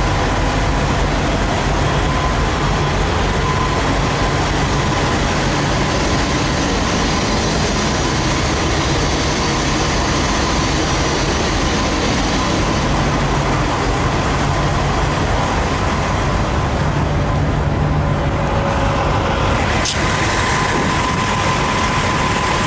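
Heavy diesel semi trucks idling, a steady rumble and drone with a thin constant hum in it. A single sharp knock near the end.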